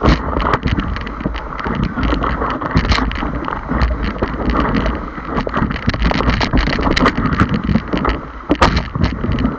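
Rushing whitewater and wind buffeting the microphone, with many sharp knocks and splashes throughout.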